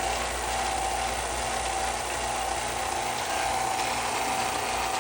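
Electric 1/3 hp vacuum pump running steadily while pulling vacuum on a small chamber: an even mechanical running noise with a steady tone.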